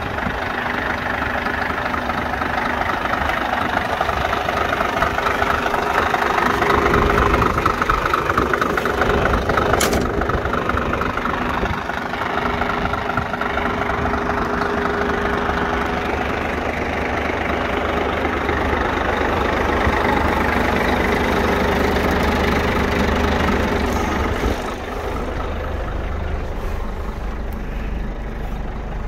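Scania P124 420 truck's diesel engine idling steadily, with a single sharp click about ten seconds in. The sound turns a little quieter and duller in the last few seconds.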